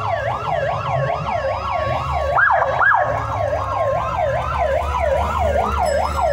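Electronic siren yelping, its pitch sweeping rapidly up and down about three times a second, over a low rumble.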